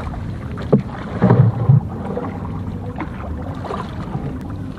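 Paddle strokes in the water from a small outrigger canoe, with a few short, low thumps about a second in.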